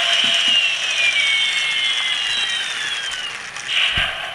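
Matchbox Elite Rescue Strike Hawk toy helicopter running its rotor motor and electronic sound effects: a buzzy whir with a high whine that falls slowly in pitch and fades over about three seconds. A short knock near the end.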